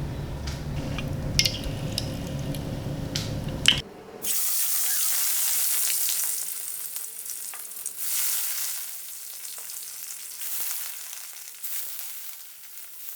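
Yellow catfish frying in hot rapeseed oil in a wok: a loud sizzle that starts suddenly about four seconds in and slowly dies down, with a few clicks of stirring. Before it comes a low steady rumble with scattered clicks.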